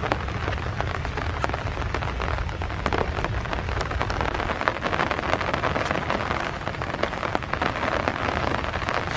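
Steady rain falling, a continuous hiss dotted with many separate drop hits.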